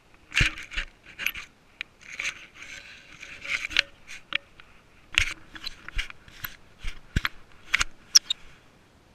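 Crackling, rustling and scraping of dry leaves, twigs and brush under a cat's paws and against its body-mounted camera as it runs across the forest floor, with irregular sharp snaps. Near the end, paws scratch and scrape through dry soil and grass.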